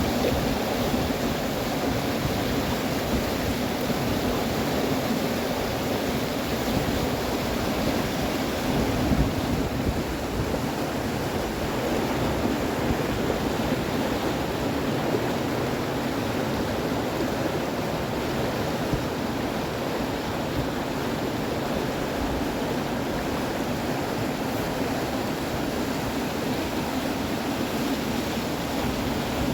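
Rushing water of the Lachine Rapids on the St. Lawrence River, a steady, even roar of churning river water.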